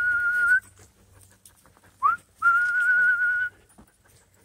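A person whistling to call puppies. A held note ends just after the start. About two seconds in comes another call: a short rising flick, then a steady note with a slight waver lasting about a second.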